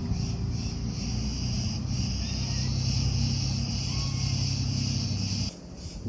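A motor engine running with a steady low hum, over insects buzzing in pulses about three times a second. The engine hum cuts off abruptly near the end while the insect buzz goes on.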